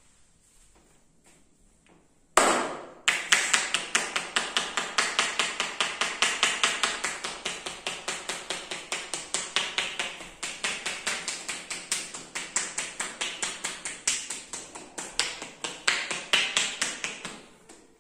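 Rapid hand tapping on a man's head during a head massage: a sharp slap about two seconds in, then a long, fast run of percussive strikes several times a second that stops just before the end.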